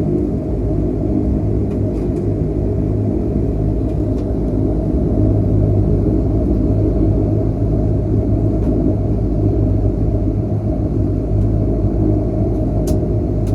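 Twin turboprop engines and propellers of a Bombardier Q300, heard from inside the cabin, running at low power while the aircraft taxis after landing: a steady low drone with a few faint clicks near the end.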